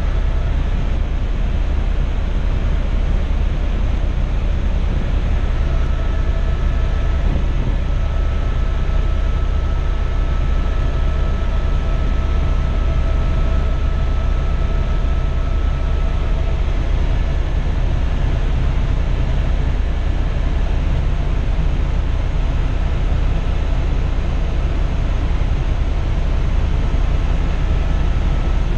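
Helicopter in flight heard from inside the cabin: a loud, steady drone with a deep low rumble and faint steady whining tones above it.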